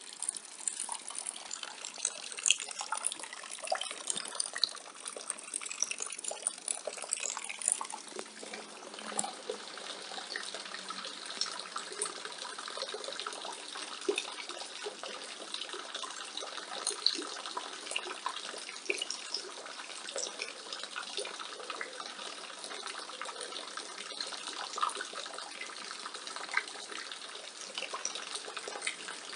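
Rainwater falling from a roof gutter and splashing steadily, with many small drips and splashes standing out from the continuous pour.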